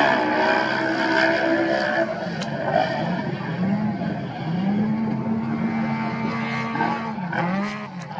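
Off-road race vehicle engine running hard, its pitch rising and falling several times with a long steady stretch in the middle.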